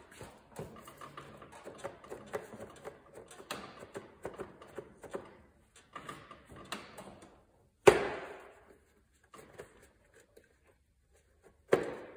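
Hands and tools clinking and rattling against the metal parts of a riding mower's V-twin engine as a stuck part is worked at, with a sharp, ringing clank about eight seconds in and another near the end.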